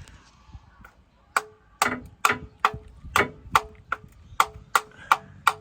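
Metal struck repeatedly with a hammer, about ten sharp blows at two to three a second, each leaving a short metallic ring. The blows start about a second and a half in.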